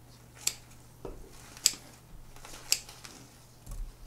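Scissors snipping three times, sharp clicks about a second apart, amid a soft rustle of hands working the staghorn fern's roots and moss, with a dull knock near the end.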